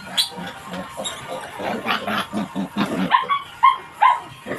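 A piglet squealing and grunting in short bursts while it is held by the hind legs and then let go, ending with three short, high squeals about half a second apart.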